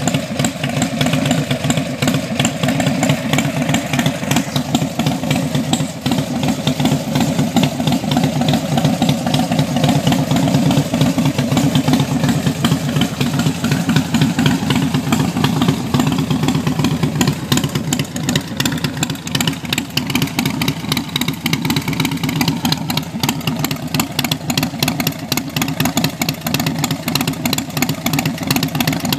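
Harley-Davidson Fat Bob's V-twin engine, fitted with a Screamin' Eagle Stage IV kit and Vance & Hines Big Shot Staggered exhaust, idling with a loud, rapid, uneven pulsing beat.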